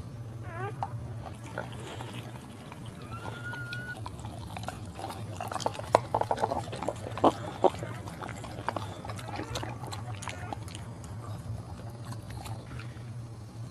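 Mother dog licking her newborn puppy: wet slurping and lapping clicks, busiest about five to eight seconds in, with a short high whine a few seconds in. A steady low hum runs underneath.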